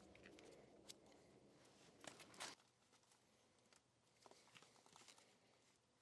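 Near silence with faint handling noises: a few small clicks and a brief rustle or scrape about two seconds in.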